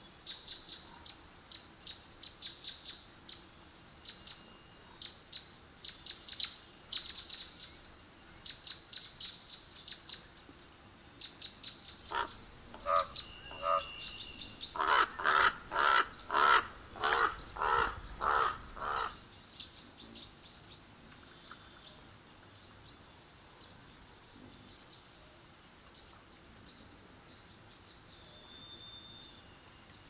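Crow cawing: a run of about a dozen harsh caws in quick succession, about two a second at their height, from a little past the middle. Short, high, rapid chirps of small birds come before it and continue faintly after.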